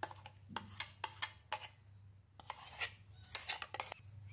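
A steel spoon scraping ground soaked chickpea paste out of a steel mixer-grinder jar: a series of faint, irregular scrapes and clinks of metal on metal.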